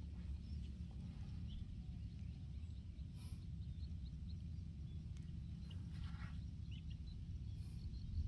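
Steady low rumble of wind on the microphone, with faint, scattered short bird chirps and calls over it.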